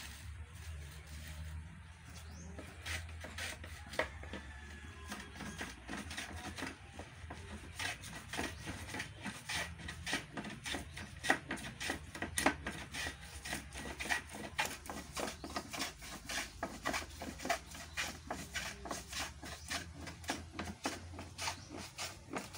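Hand plane shaving a rough wooden log in repeated scraping strokes, a few spaced strokes at first, then fast and steady from about a third of the way in.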